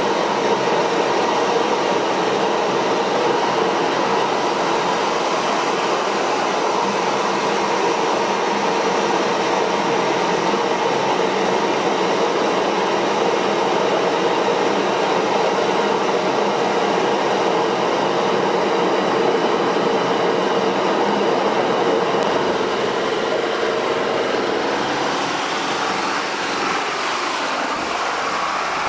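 Small jet engine running steadily on the bench, a loud rushing noise with a steady whine through it. The tone shifts a little in the last few seconds.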